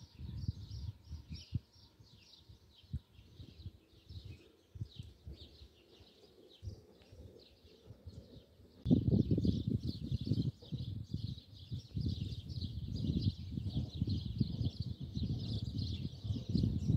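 Small birds chirping busily and without a break, over a low, gusty rumble that gets much louder about halfway through.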